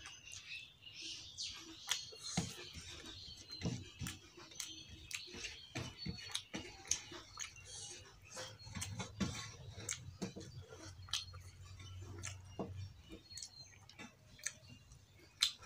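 Eating by hand: fingers mixing rice and fish curry against a steel plate and the mouth chewing with wet lip smacks, heard as an irregular string of small clicks and ticks.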